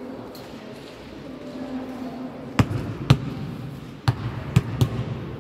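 A ball bouncing on a hard floor: a handful of irregular thumps starting about halfway through, the loudest two close together.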